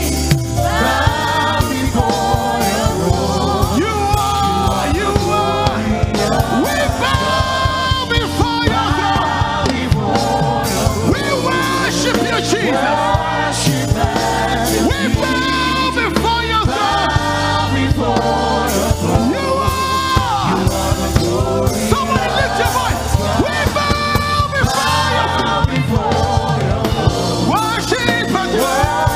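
Live gospel praise music: a lead singer and backing vocalists singing together over a full band with a steady beat.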